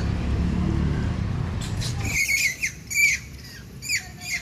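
A low rumble of wind and handling noise that drops away about two seconds in. Then comes a run of short, high-pitched squeaks or chirps, each falling in pitch, about two a second.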